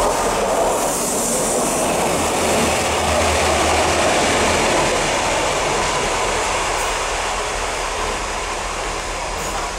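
Two MTR diesel locomotives, Siemens ER20 no. 8004 and no. 58, running through a station at speed without stopping: engines and wheels on the rails, loudest as they go by, then slowly fading as they draw away.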